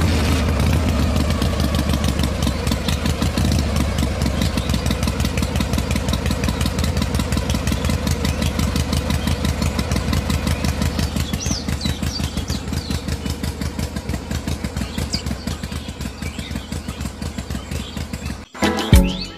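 DIY mini tractor running the toy grape juicer by a rubber-band belt: a rapid, even chugging like a small engine idling, over a low hum. It cuts off suddenly near the end.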